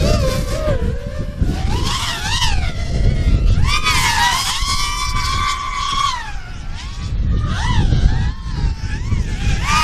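FPV racing quadcopter's brushless motors whining as it flies past, the pitch swooping up and down with quick throttle changes and held steady for about two seconds near the middle. A low rumbling noise runs underneath.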